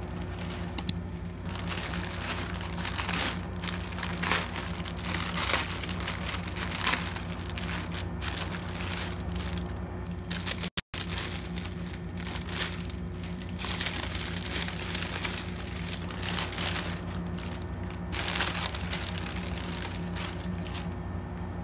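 Plastic packaging around skeins of yarn crinkling and rustling in irregular bursts as it is handled and unwrapped, over a steady low hum.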